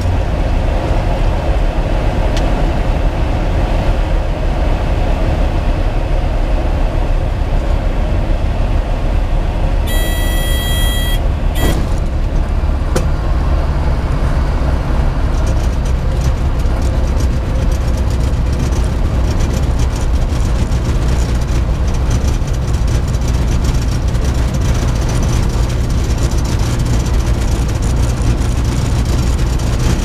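Tecnam P2002JF light aircraft's Rotax 912 engine running at low power, heard from inside the cockpit as the plane rolls out along the runway after landing, with steady wind and rumble on the microphone. About ten seconds in, a short high electronic beep sounds for just over a second, followed by a couple of clicks.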